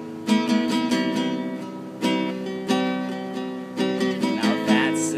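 Acoustic guitar strummed in chords, a new strum every half second to a second, each chord ringing on until the next.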